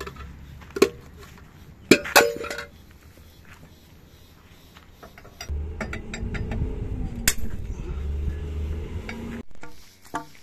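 Metal clinks of a lug wrench on a VW Kombi's front wheel nuts: a few sharp strikes in the first seconds, one ringing briefly. Later comes a few seconds of low rumbling with one more sharp clink.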